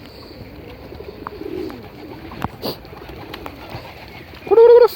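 Pigeons cooing softly and repeatedly. Near the end comes one much louder, arched call.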